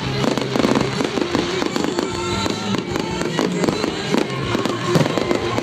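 Firework display going off: a run of sharp bangs and crackles at irregular intervals, heard over music.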